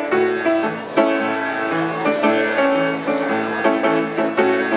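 Instrumental passage of a Polish tango song, with no singing: a melody of held notes over a steady bass line that moves every half second or so.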